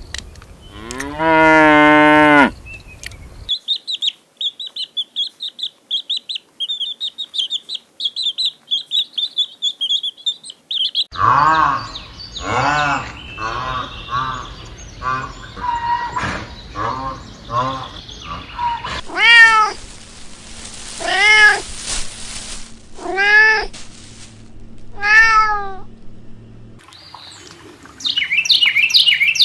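A sequence of animal calls: a short pitched call near the start, then fast high chirping for several seconds, then a rapid run of calls. Four separate drawn-out cat meows follow, each rising then falling, about two seconds apart, and high chirping returns near the end.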